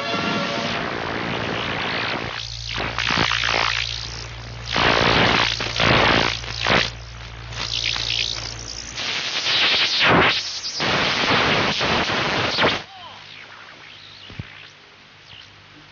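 Hissing static from a disrupted television broadcast. It swells and fades in loud surges, with a low steady hum underneath for a while, and drops to a fainter hiss about three-quarters of the way through.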